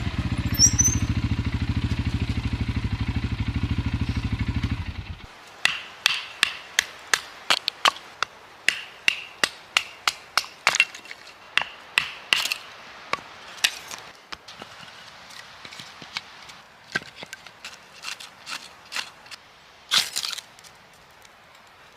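An ATV engine running with a steady low pulse, cutting off about five seconds in. Then a long irregular run of sharp knocks and cracks, often about two a second, with some ringing.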